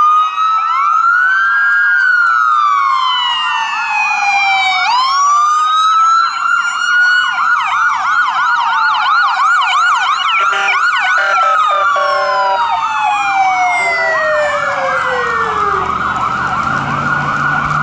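Several police and ambulance sirens sounding at once, overlapping: slow rising-and-falling wail tones and fast warbling yelp tones. Near the end one siren slides down in a long falling tone and a vehicle engine rumbles past.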